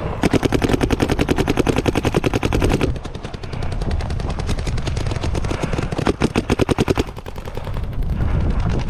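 Paintball marker firing a rapid, evenly spaced stream of shots for about three seconds, then a second shorter burst about six seconds in, over wind rumbling on the microphone.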